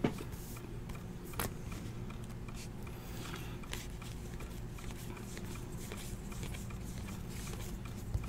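Faint handling of trading cards: cards sliding against one another and a few light clicks, the clearest about a second and a half in, over a low steady room hum.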